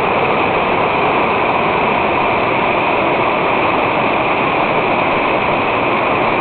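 Steady, loud rush of a large waterfall, 85 m high and carrying a great volume of water.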